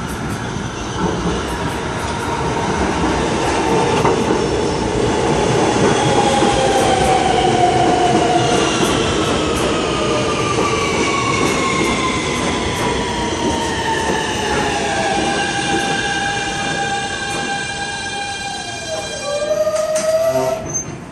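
R160 New York City subway train arriving and braking to a stop: its AC traction motors whine in several tones that fall steadily in pitch, then hold, over the rumble and clicking of the wheels on the rails. A short louder burst comes near the end as the train stops.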